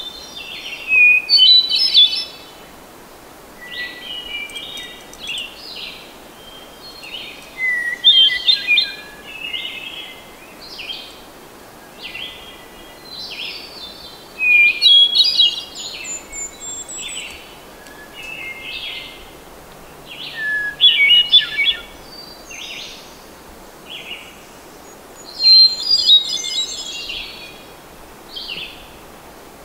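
Hermit thrush singing: short phrases every few seconds, each opening on a held note and breaking into a quick run of higher notes, over a steady hiss.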